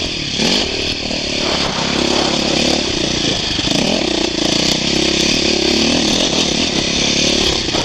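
2008 KTM 450 XC-F dirt bike's single-cylinder four-stroke engine running under throttle, its revs dipping and climbing again near the start and rising and falling as the throttle is worked.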